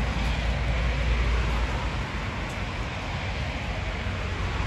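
Wind buffeting a handheld phone microphone: an uneven low rumble over a steady hiss, the rumble easing about two seconds in.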